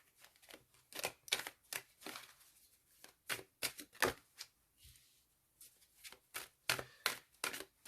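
Tarot cards being handled and laid down on a table: irregular soft clicks and brief slides of card stock as cards are drawn and placed.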